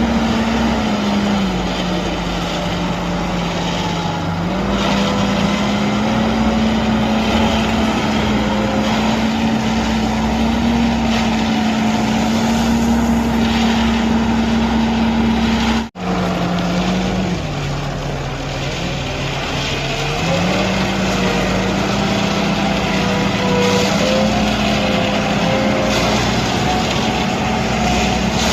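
Diesel engine of an Ajax Fiori Argo 4300 self-loading concrete mixer running steadily under work. Its speed sags twice for a few seconds and then picks back up, as if taking load. The sound cuts out for an instant about halfway through.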